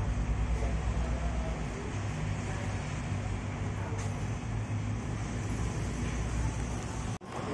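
Steady low rumble and hiss of background traffic noise, cut off abruptly about seven seconds in.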